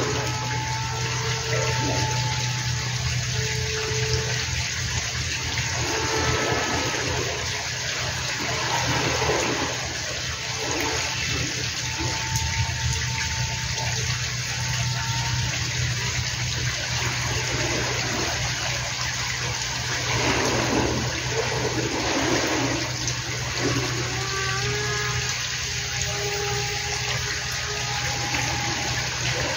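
Wind rushing and buffeting over the microphone. Under it, the faint hum of a Sky Surfer X8 RC plane's electric motor and propeller comes and goes in short stretches.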